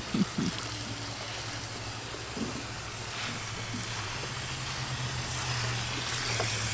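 Water from a garden hose nozzle running into a child's plastic water table, under a steady low hum that grows a little stronger about four seconds in. A couple of short low sounds come in the first half-second.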